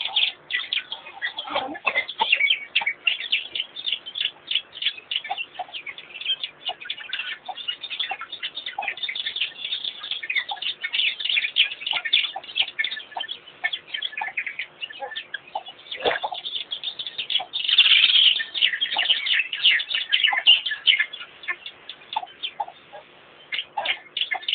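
A dense chorus of wild birds chirping rapidly and continuously in high notes, with a few scattered lower single calls. A single sharp knock comes about two-thirds of the way in.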